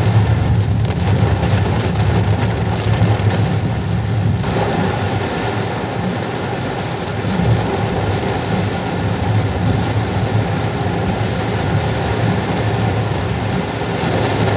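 Heavy rain falling on a moving car's roof and windshield, heard inside the cabin as a steady hiss over the low, even rumble of the car's engine and tyres on the wet road.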